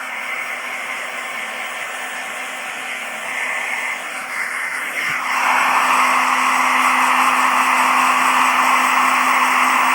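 Electric hair dryer running with a steady blowing rush and a low hum. It gets louder about halfway through.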